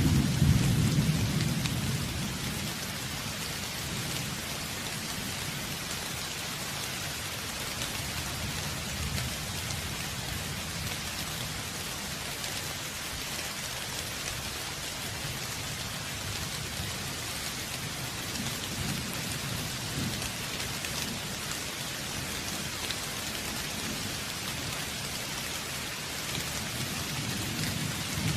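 Steady rain falling, with a low rumble of thunder in the first couple of seconds and fainter rolls of thunder later on.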